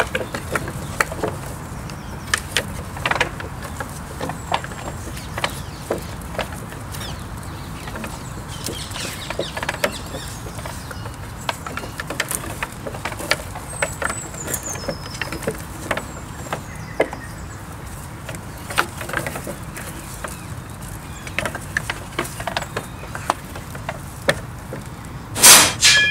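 Red deer stags' antlers knocking, clacking and scraping against the dry branches of a fallen dead tree, in irregular clicks over a steady low hiss, as the stags rub at antlers that are ready to be shed. Near the end a single loud burst cuts in, followed by ringing tones.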